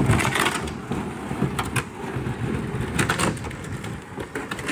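A loaded canoe dragged across a concrete boat ramp, its hull scraping and grinding over the rough surface in uneven pulls.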